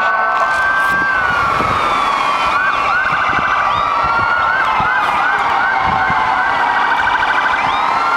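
Several fire truck and emergency vehicle sirens sounding together: a slow wail rising and falling, with quick repeated whooping yelps and short bursts of fast warble through the middle.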